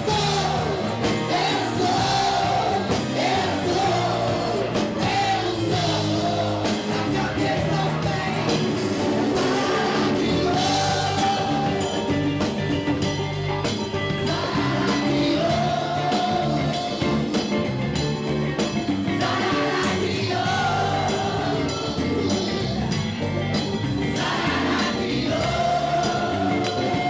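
A Brazilian band playing live, with women singing long held lines over the full band.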